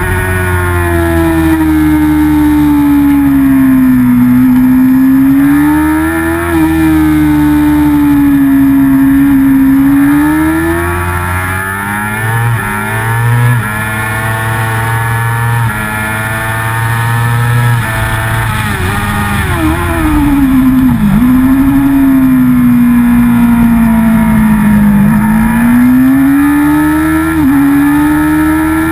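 Racing motorcycle engine at high revs, heard from a camera mounted on the bike, its pitch sinking and climbing again as the rider works the throttle and gears through the corners, with sharp drops on downshifts near the start and about two-thirds of the way through. Wind rush hisses over it.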